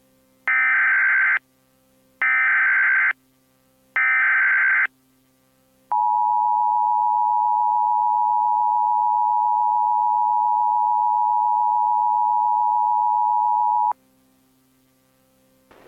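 Emergency Alert System SAME header: three short bursts of warbling data tones, about a second apart. These are followed by the EAS attention signal, a steady tone held for about eight seconds that then cuts off.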